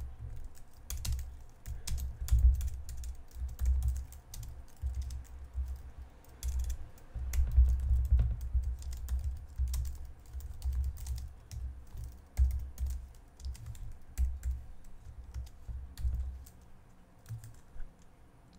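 Typing on a computer keyboard: a run of irregular key clicks, each with a dull low thump under it, entering a long terminal command.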